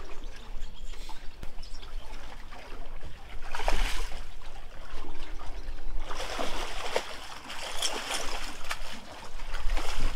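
Hooked channel catfish thrashing at the water's surface beside the boat, splashing in a short burst about four seconds in and then in a longer stretch of splashing.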